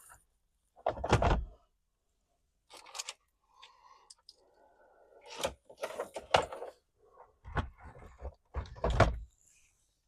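A series of about six irregular thumps and knocks, with light scraping between them, as parts are forced and fitted by hand inside a car's interior.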